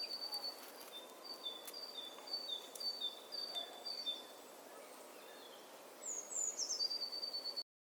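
Forest songbird singing a repeated two-note whistle, a higher note then a lower one, over and over for about four seconds. Around six seconds in, a call of a few notes falling in pitch ends in a held whistle, then the sound cuts off suddenly.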